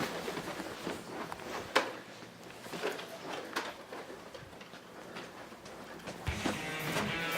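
Scattered short clicks and knocks in a small room, from Nerf blasters being handled during a Nerf battle. Background music comes back in about six seconds in.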